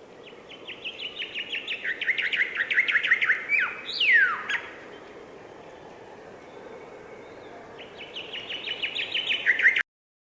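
A songbird singing a fast run of repeated chirping notes that speeds up and grows louder, ending in one steep downward-sliding note about four seconds in. A second run of notes starts near the end and cuts off abruptly.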